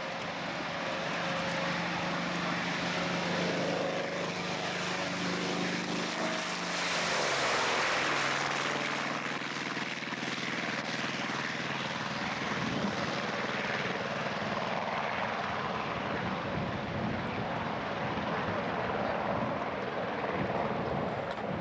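Piston-engine propeller aircraft going by. Its engine note drops in pitch as it passes, loudest about seven seconds in, then runs on at a lower pitch.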